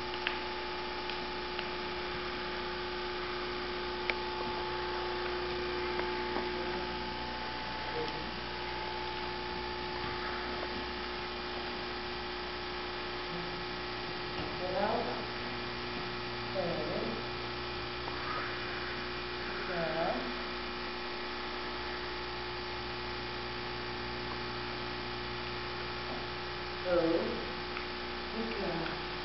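Steady electrical hum made of several fixed tones, with a few faint, brief voice-like sounds that rise and fall in pitch about halfway through and near the end.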